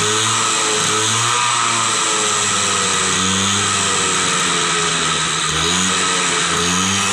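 TVS 50 Champ moped's 50 cc single-cylinder two-stroke engine revved hard while standing still, its pitch rising and falling again and again.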